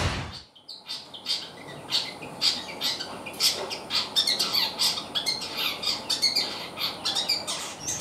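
Long-tailed shrike (cendet) singing in full voice: a rapid, busy stream of short, sharp, high-pitched chirps and scratchy squawking notes.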